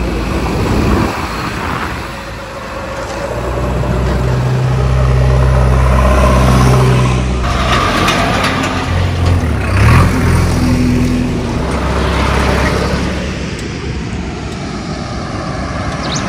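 Diesel engines of a JCB 3DX backhoe loader and then a John Deere tractor driving past close by. The tractor's engine note is strongest in the middle, rising briefly in pitch about ten seconds in, then fading.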